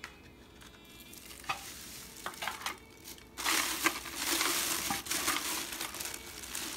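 Plastic wrapping crinkling and rustling as a plastic-wrapped pressure-cooker inner pot is handled, starting about three and a half seconds in after a few light knocks.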